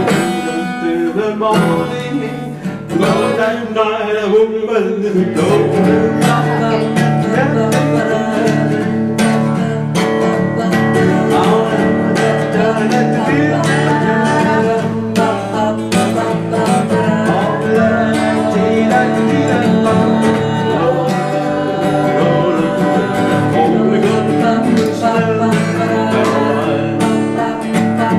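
Acoustic guitar strummed in steady chords, with voices singing along.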